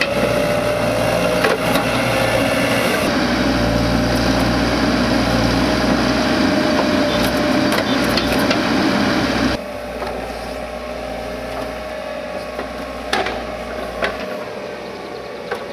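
Tracked excavator running under work, with a steady engine drone and a thin high whine, as its mounted planting head scrapes and mounds soil; scattered knocks and clicks. The level drops abruptly about ten seconds in.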